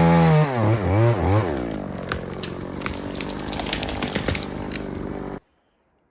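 EFCO two-stroke chainsaw running at full throttle, then throttled back in a few dips to a lower steady idle, with scattered sharp clicks over it. The sound cuts off abruptly about five seconds in.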